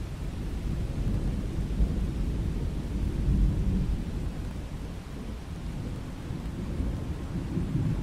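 Thunder rumbling over steady rain. The rumble swells about a second in, peaks around the middle, and rises again near the end.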